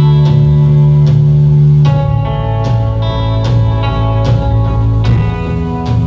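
A live rock band playing an instrumental passage: sustained, layered electric guitar chords over a heavy bass, with a slow steady drum beat. The chord changes about two seconds in and again about five seconds in.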